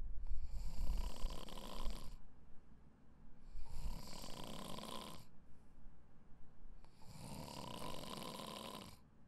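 A person snoring in sleep: three long snoring breaths, each about two seconds, roughly three and a half seconds apart, with quieter in-between breaths.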